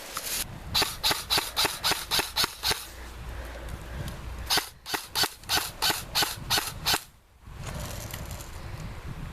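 Airsoft gun firing two strings of about nine rapid single shots, roughly four a second, with a pause of about two seconds between them.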